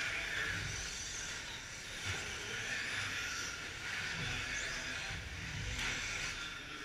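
Electric short-course RC trucks with 17.5-turn brushless motors racing on a dirt track: a steady hissing whine of motors and tyres, brightening as trucks pass close by.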